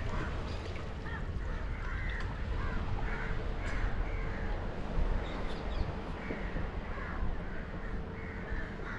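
Crows cawing over and over, several short harsh calls a second, over a steady low rumble.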